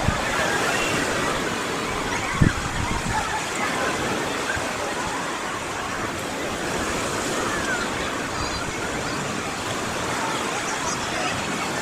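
Sea of Azov surf: small waves washing ashore in a steady wash of noise, with a brief low thump about two and a half seconds in.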